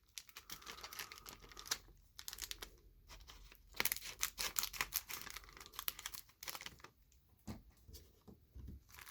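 Trading card pack wrapping and cards being handled: a run of quick crinkling, crackling and tearing noises.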